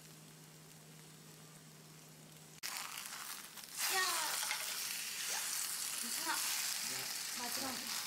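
Vegetable pancake batter frying in oil in a four-hole pan: a faint steady hum, then loud sizzling that starts suddenly about two and a half seconds in and grows louder just before four seconds in, as a pancake is turned over.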